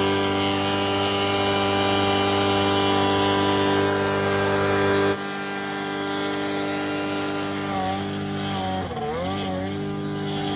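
100 HP two-stroke hovercraft engine running steadily at high revs. It eases off suddenly about five seconds in, and near the end the revs dip and recover.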